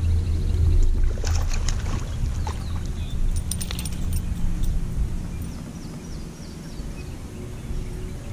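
Low wind rumble on the microphone, with light clicks and rattles from a fishing rod and reel as a small bass is hooked and reeled in, bunched about one to two and three and a half to four seconds in. A short run of high chirps follows around six to seven seconds in.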